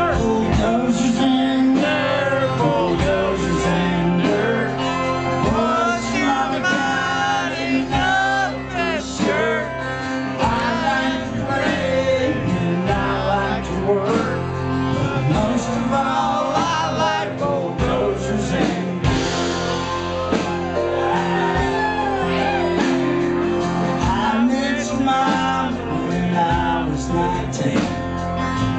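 Live band playing a country-rock song, guitars to the fore, with some singing.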